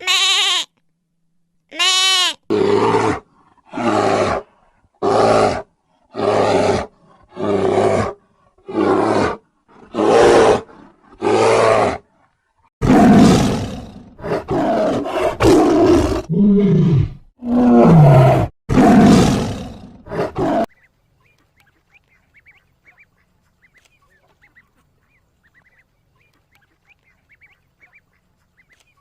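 A sequence of loud animal calls. It opens with two high, wavering calls, then a run of about nine evenly spaced calls roughly one a second, then several longer, rougher calls, and it stops about 21 seconds in, leaving only faint sound.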